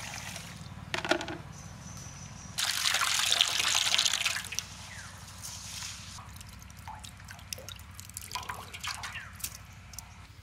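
Rice being washed in an aluminium bowl: water poured in and splashing over the grains, loudest from about two and a half to four seconds in. Afterwards the water is drained off through the fingers, trickling and dripping, with small clinks of the bowl.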